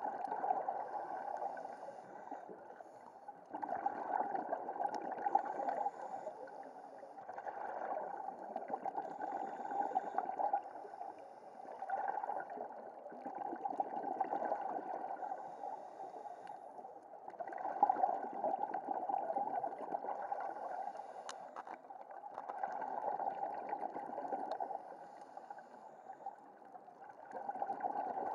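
Scuba diver breathing through a regulator underwater: bursts of bubbling exhaust about every four seconds, quieter between breaths.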